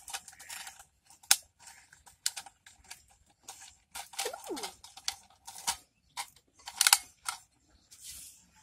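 A cut plastic bottle piece being pressed and twisted into the neck of a clay pot: irregular clicks, crackles and scrapes of plastic against the clay rim, with a short squeak about four seconds in.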